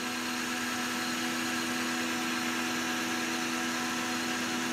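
Metal lathe taking a facing cut across a cast iron slug with a carbide insert at a slow feed of about 3.3 thousandths per revolution. It runs steadily: an even hum with a hiss over it.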